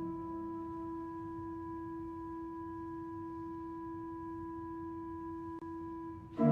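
Church pipe organ holding one soft, pure-sounding note after the lower notes of the chord die away, with a brief break in it about five and a half seconds in. A loud full chord comes in right at the end.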